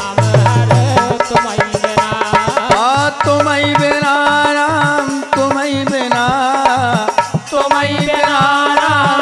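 Bundeli devotional folk song (desi bhagat) with a steady drum beat; about three seconds in, a male singer comes in with a long held, wavering note over the drumming.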